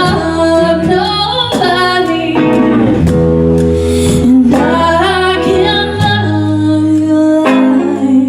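A woman singing over guitar accompaniment in a live song performance, her voice gliding over sustained guitar chords.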